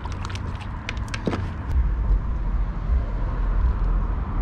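Low rumble of traffic crossing the highway bridge overhead, building up after a couple of seconds. Near the start come a few light clicks and rattles from clipping a hand-held fish scale onto a bass.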